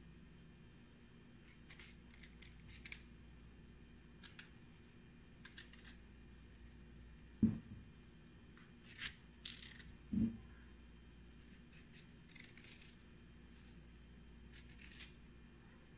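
Small kitchen knife slicing through raw chayote flesh in short, crisp rasps, with two soft knocks on the cutting board about halfway through.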